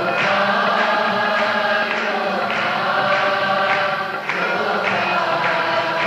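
Hindi devotional bhajan to Krishna: a voice holding long sung notes over accompaniment, breaking off once about four seconds in before the next line starts.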